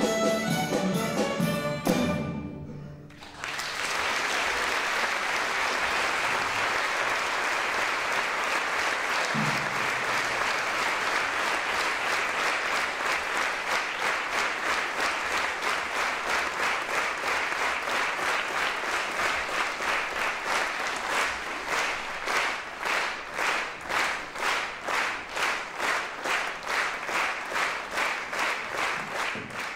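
Instrumental music with strings ends about three seconds in, and an audience breaks into applause. After a while the clapping falls into a steady unison rhythm of about two claps a second.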